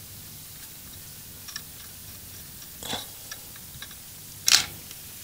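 Rosin flux and molten solder sizzling in a few short crackling spits on a twisted copper-wire splice heated by a soldering gun, the strongest about three and four and a half seconds in, over a faint steady low hum.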